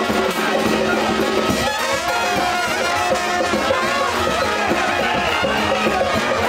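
Music playing steadily, with brass instruments prominent.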